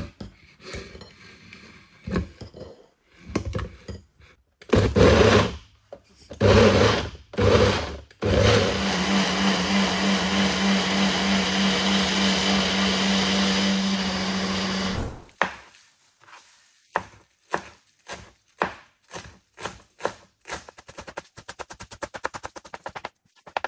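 Electric blender puréeing tomatoes: a few short pulses, then a steady run of about seven seconds that cuts off suddenly. After it comes a string of short knocks and taps.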